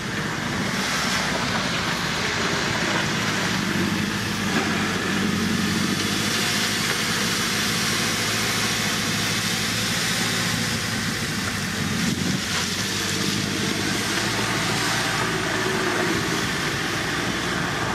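JCB 3CX backhoe loader's hydrogen-fuelled internal combustion engine running as the machine drives and works its loader bucket. Its pitch rises and falls a few times with the work.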